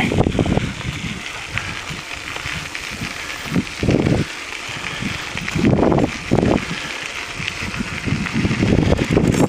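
Bicycle rolling along a crushed-gravel trail: a steady rush of tyre and riding noise, with a few louder bursts about four and six seconds in.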